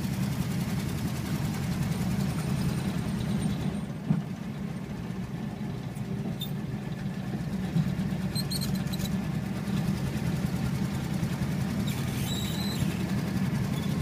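1959 Ford Thunderbird's V8 engine running steadily at low speed, heard from inside the cabin, with a few brief high squeaks about two-thirds of the way through and near the end. The occupants trace the squeaks to the steering column.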